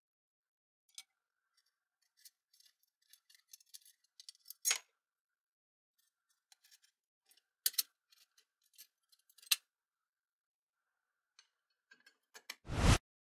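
Scattered small metallic clicks and taps of an Allen key and sheet-steel bracket parts being handled and fitted, with a louder thump near the end.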